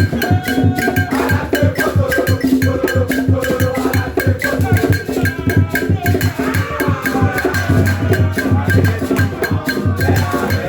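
Music played loud over a sound system, with a fast, steady percussion beat and heavy bass.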